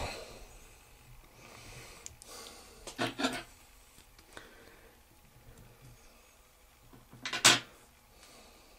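Handling noises at a fly-tying vise while thread is wound onto a hook: a few short knocks or clatters about three seconds in and a louder sharp one about seven and a half seconds in, with faint rustling between.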